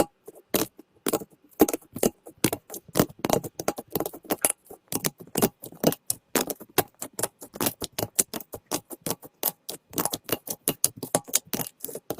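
Slime being squeezed and kneaded by hand, making a fast, irregular run of sticky clicks and pops.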